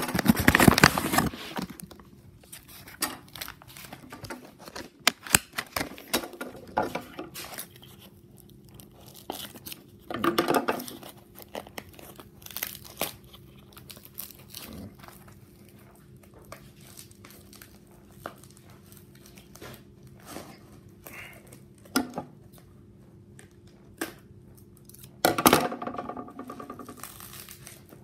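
A package being opened by hand: cardboard and plastic wrapping crinkling and tearing in irregular bursts, with scattered clicks and rustles between. The loudest bursts come at the start, about ten seconds in, and near the end.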